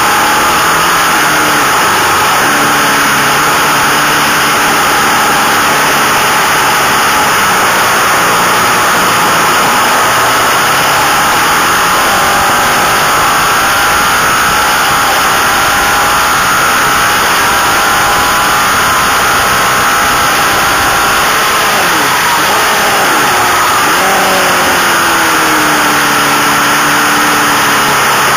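Racing motorcycle engine at speed heard from on board under heavy wind rush, its note rising and falling with gear changes and dropping away about three-quarters of the way through, as it slows for a corner.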